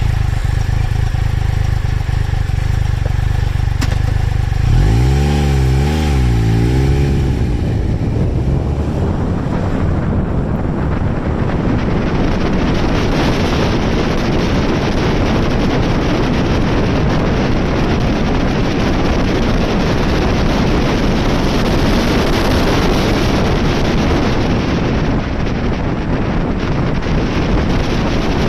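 Triumph Tiger Explorer 1200's three-cylinder engine ticking over, then revving up and down about five seconds in as the bike moves off. From about eight seconds in, loud wind noise rushing over the microphone buries the engine.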